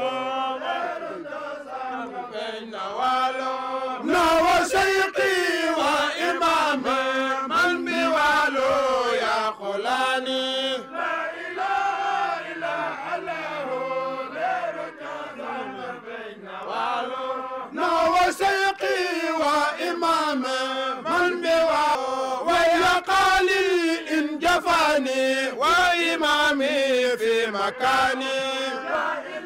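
Men's voices chanting an Islamic religious chant in a long melodic line, with frequent sharp percussive hits over it through most of the passage.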